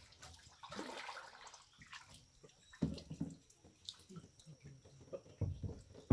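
Small irregular splashes and drips of river water around kayaks and their paddles, with a few soft low thumps.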